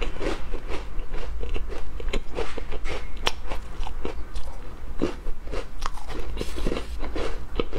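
A person biting and chewing small, crisp, round coarse-grain biscuits: a quick, irregular run of sharp crunches that goes on without a break.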